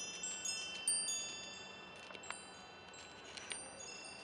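Wind chime ringing in the wind: many high, overlapping notes struck at irregular moments, each ringing on. The loudest strike comes about a second in, and the strikes thin out after that.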